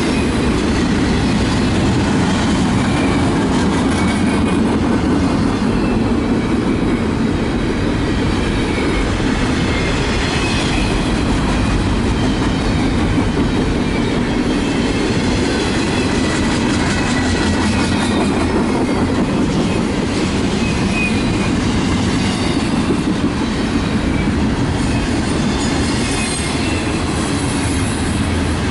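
Union Pacific double-stack container train's well cars rolling steadily past at track side: a continuous heavy rumble of steel wheels on rail with clacking over the joints, and faint high wheel squeal now and then.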